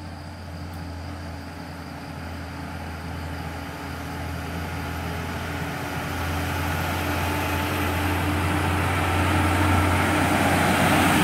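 Heavy cargo truck climbing a hill, its engine running under load with a steady low drone that grows steadily louder as it approaches.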